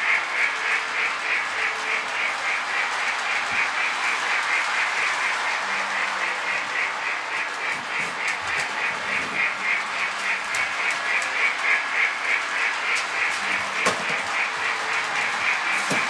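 Toy train running around its track, a steady, rapidly repeating chatter that never changes pace, with a few sharp cardboard clicks near the end as the box is opened.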